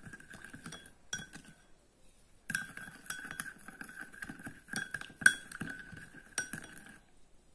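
Spoon clinking and scraping against the side of a bowl while stirring chilli powder into salt water. There is a short burst of stirring, a brief pause, then steady clinking that stops just before the end, with one sharper knock in the middle.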